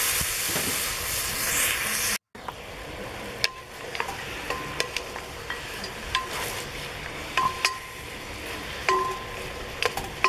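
Mutton browning in a cast-iron pot over coals, sizzling loudly for about two seconds, then more quietly after a brief dropout. A wooden spoon stirs the meat and knocks against the pot about a dozen times, and several of the clinks ring briefly.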